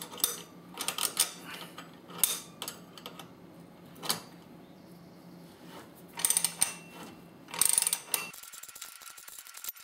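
Ratcheting wrenches clicking in short, irregular runs as they turn the plunger of a pulley installer tool, pressing the pulley onto the power steering pump shaft.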